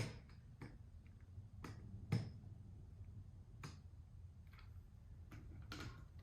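A series of irregular sharp clicks and light knocks, about eight in all, with the loudest right at the start and another about two seconds in: small hard plastic parts of a toy train being handled and set down.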